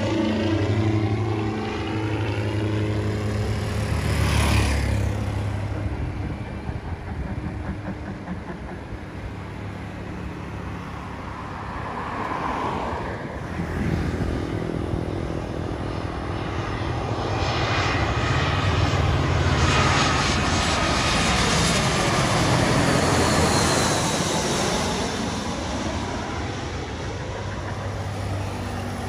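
Small twin-engine propeller plane flying overhead, a steady engine drone that falls in pitch as it passes. In the second half a jet airliner's engines on final approach take over, louder, with gliding pitch.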